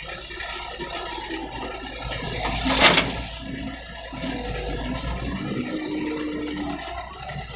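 Doosan DX140W wheeled excavator's diesel engine and hydraulics running as it swings a bucketful of soil over a dump truck. About three seconds in, the load pours out in a short, loud rush of soil falling into the truck's steel bed.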